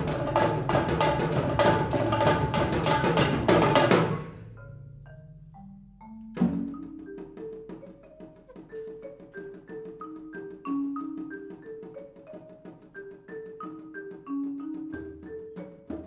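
Percussion ensemble playing: a loud full passage of driving, evenly spaced strokes cuts off suddenly about four seconds in. A few soft notes and a low note sliding upward follow, then a sharp accent. After that comes a quieter melodic line of separate mallet-keyboard notes.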